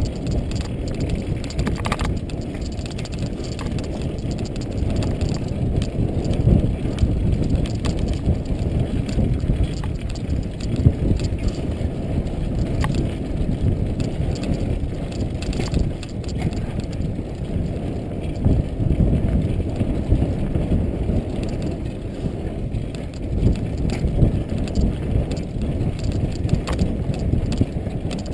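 Bicycle riding over a bumpy dirt trail, picked up by a GoPro carried by a following rider: a steady, dense low rumble from the ground and wind, with a few sharp clicks and knocks from bumps.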